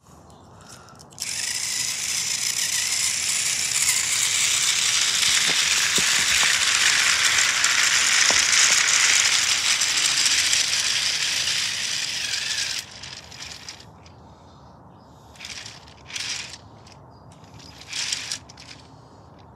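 Plastic toy train clattering: a dense mechanical rattle, like a small geared motor and plastic wheels, starts about a second in and runs for about eleven seconds before stopping. After that come a few short plastic clicks and rattles as the cars are pushed along the track.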